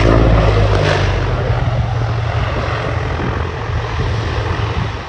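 C-123K Provider's twin radial piston engines and propellers running at high power as the aircraft is low over the runway. It is a loud, steady drone with a low pulsing beat, loudest at the start and easing off near the end.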